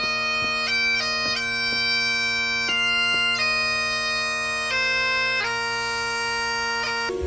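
Highland bagpipe playing a slow funeral lament over its steady drones, with quick grace notes between the melody notes; the pipes stop just before the end.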